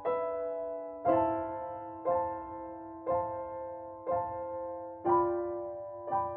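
Slow piano music: a chord struck about once a second, each left to ring and fade before the next.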